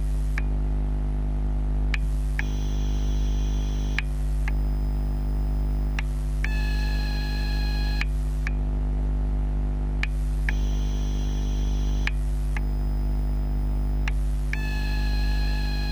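TGX12 NiMH/NiCd battery charger heard through contact microphones while charging AA cells: a steady low electrical hum, with a high whine that switches on and off with a click about every two seconds. The whine's pitch changes from one stretch to the next. This is the strange noise the charger makes while charging.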